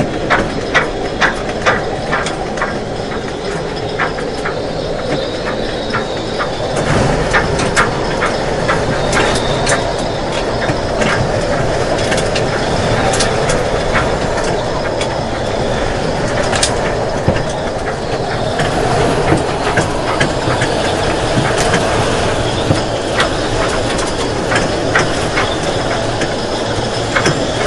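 High wind buffeting a boat on jack stands, heard from inside the cabin: a steady rushing noise with irregular clicks and rattles as the hull and its fittings shake in the gusts. The rattling grows busier about seven seconds in.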